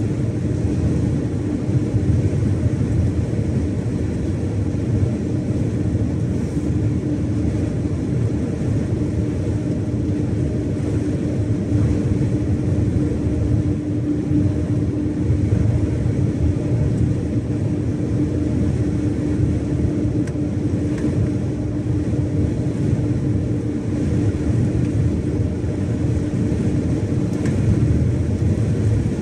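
Iveco Stralis 570XP truck's Cursor 13 straight-six diesel running steadily while cruising on the motorway: a low rumbling drone with an even hum, mixed with road noise.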